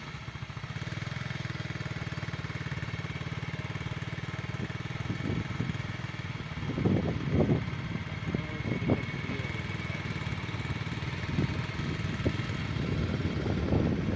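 A vehicle engine running steadily at an even speed while the vehicle drives along a dirt track. Gusts of wind rumble on the microphone now and then.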